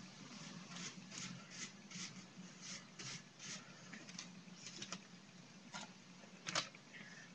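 Paintbrush strokes swishing on a lobster buoy, short irregular strokes about two to three a second, with one louder tap near the end, over a steady low hum.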